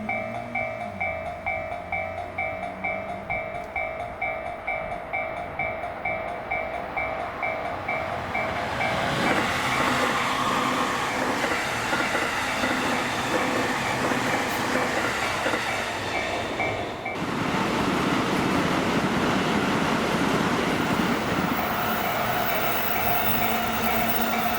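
Japanese level-crossing alarm ringing at about two strikes a second while electric trains pass over the crossing. From about eight seconds in the rumble and clatter of a passing train covers the alarm; it dips briefly about two-thirds of the way through and then builds again, with the alarm still ringing underneath.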